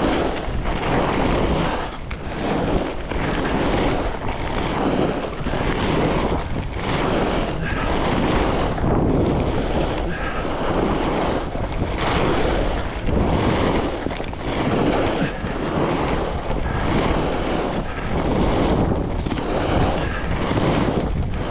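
Wind rushing over the microphone of a skier carving fast turns on groomed snow, the rush of skis on snow swelling and easing about once a second with each turn.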